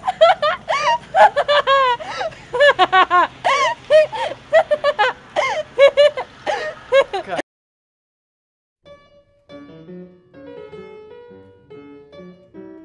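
A woman laughing hard in rapid, high-pitched bursts, cut off abruptly about seven seconds in. After a second or so of silence, quieter music of short, separate notes begins.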